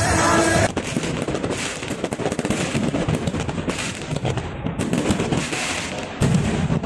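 Fireworks crackling in a dense, rapid patter of small pops, starting as music cuts off just under a second in.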